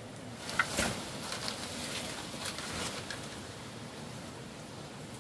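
A few sharp cracks and crackles from broken branches and debris of a fallen tree being handled, the loudest a single crack about half a second in, over steady outdoor background noise.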